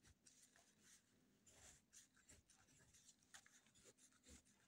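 Very faint scratching of a ballpoint pen writing numbers on ruled notebook paper, in short irregular strokes.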